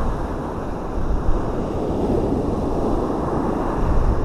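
Wind blowing across the microphone as a steady low rumble, over the wash of waves breaking on the beach.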